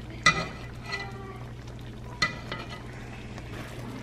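Metal spoon clinking and scraping against a cast iron skillet while basting chicken in a simmering lemon-butter sauce, with a soft steady sizzle underneath. Two clearer clinks stand out, one near the start and one a little past halfway.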